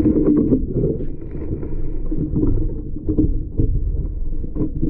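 Muffled handling noise: a steady low rumble with irregular knocks and taps throughout.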